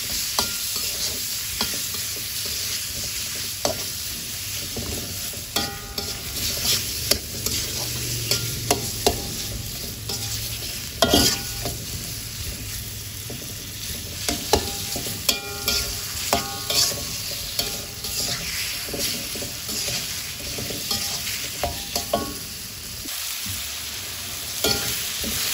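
Chicken pieces sizzling in oil in a wok, being briefly fried and stirred, with frequent clinks and scrapes of a metal spatula against the pan over the steady sizzle.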